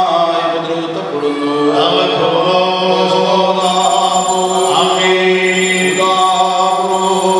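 A man chanting a baptismal prayer in long held notes that change pitch a few times, amplified through a microphone.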